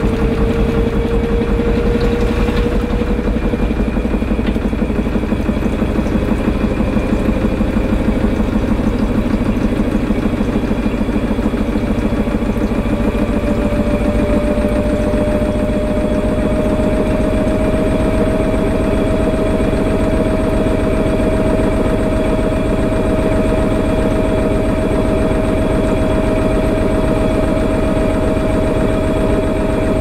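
AEG 8000 Series Lavamat washing machine spinning its drum. A motor whine rises slowly in pitch as the drum speeds up, then holds steady at spin speed over a constant low rumble.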